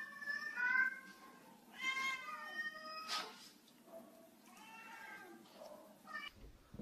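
Domestic cat meowing three times, each meow bending in pitch, the last one fainter. A short sharp noise falls between the second and third meows.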